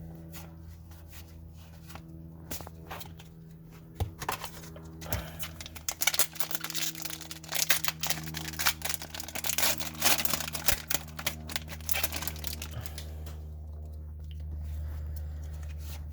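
Trading-card pack wrapper being torn open and crinkled by hand, a dense crackling rustle through the middle of the stretch, over a steady low hum.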